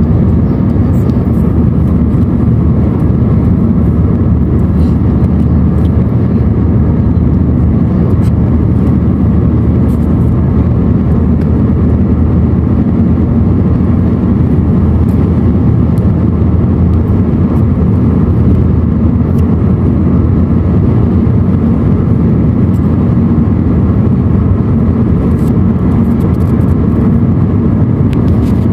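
Car interior road noise while driving steadily at speed: a constant low rumble of tyres and engine heard from inside the cabin.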